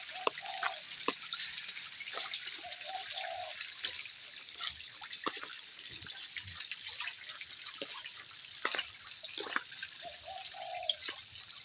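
Densely stocked catfish thrashing at a pond's surface, making a continuous patter of small splashes and drips.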